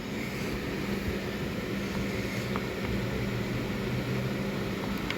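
Steady low mechanical hum of background machinery, with a faint click or two.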